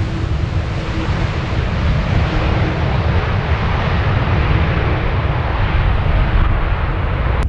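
Jet airliner's engines making a loud, steady rumble with a hiss on top that slowly thins out, mixed with wind buffeting the microphone.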